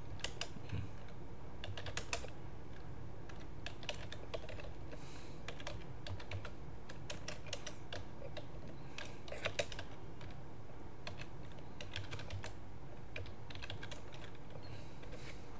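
Computer keyboard keys clicking as a command is typed: short irregular runs of keystrokes with pauses between them.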